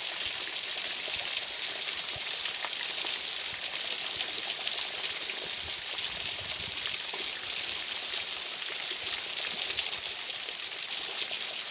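Steady, high-pitched hiss of running water, like a stream, with small irregular splashing flecks through it.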